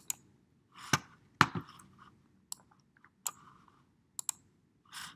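Computer mouse clicks: a string of sharp, irregular clicks, the two loudest about a second in and half a second later, with faint brief murmurs between them.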